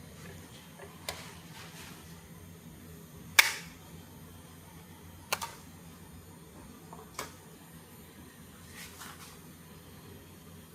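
A few separate sharp clicks or knocks, the loudest about three and a half seconds in and two close together a couple of seconds later, over a faint steady hum.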